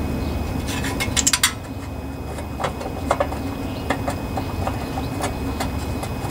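Small metallic clicks and taps as hands handle parts on a Briggs and Stratton lawnmower engine: a quick rattle of clicks about a second in, then scattered single ticks, over a steady low hum.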